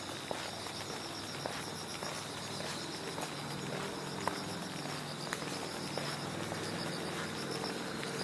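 Autumn-night insects chirping: a steady high trill with pulsing chirps above it, and scattered footsteps of shoes on pavement. A low hum fades in about three seconds in.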